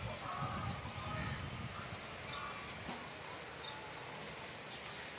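Outdoor ambience: a steady hiss with a few short, high bird chirps scattered through it.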